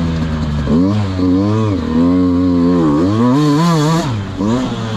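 Dirt bike engine revving up and falling back again and again as the throttle is rolled on and off, about four rises in pitch.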